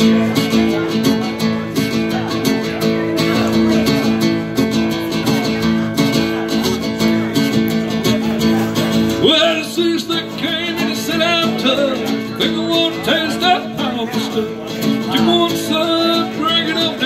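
Acoustic guitar strummed in a country song, with a voice coming in over the chords from about nine seconds in.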